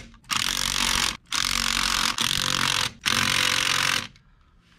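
Cordless impact driver hammering the six hub seal housing bolts on a school bus wheel hub, in four runs of about a second each. The bolts are being snugged down in a star pattern ahead of final torquing. The tool stops about four seconds in.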